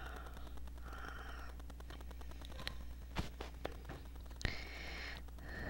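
Faint handling noise, soft rustling with a few light clicks and knocks, over a low steady hum, as a doll is moved about in front of the camera.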